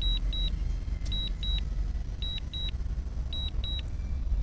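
Drone remote controller beeping an alarm: short high double beeps about once a second, over a low steady rumble. The alarm sounds as the drone is sent home because of heavy signal interference.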